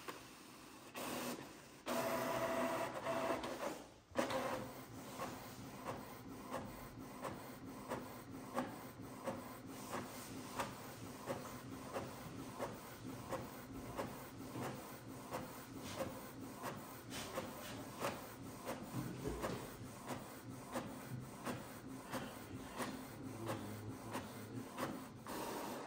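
Printer printing a colour page. There is a louder stretch with a steady tone about two seconds in, then it settles into a regular, rhythmic mechanical pattern.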